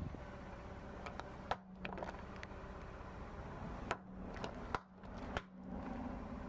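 A car tyre rolling over things and crushing them: a few sharp plastic cracks, first from a laptop's casing, then from small plastic dessert cups splitting and squashing, over a low steady hum.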